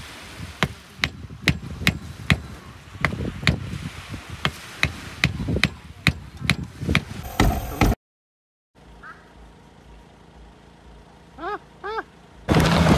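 An axe chopping wood in sharp, regular strikes, about two or three a second, for most of the first seven seconds. Near the end a car engine comes in loud, with wind on the microphone.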